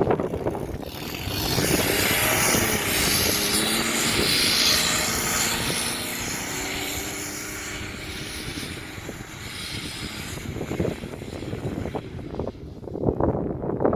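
Jeep Wrangler TJ engine revving hard under load while driving in sand, its pitch rising and falling, with a loud rushing hiss over it in the first half. The sound drops off and turns rougher toward the end.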